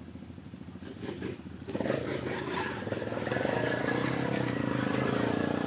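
Quad ATV engine running low, then revving up hard about two seconds in and held at high revs, with the quad bogged down in deep mud.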